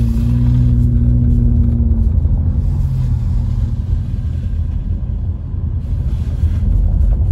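Car driving on a snow-covered road, heard from inside the cabin: a steady engine hum fades out about three seconds in, leaving a constant low rumble of the tyres on the road.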